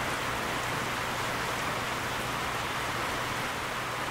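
Heavy rain falling steadily: an even, continuous hiss with no breaks.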